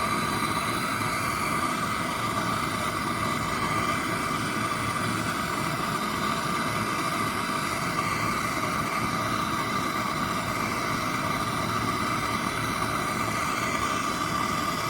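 A steady mechanical hum with a constant whine, unchanging throughout.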